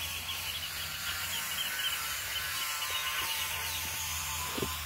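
Outdoor rural ambience: a steady hiss over a low hum. A rapid run of high chirps, several a second, lasts for about the first two seconds, and a few faint knocks come later.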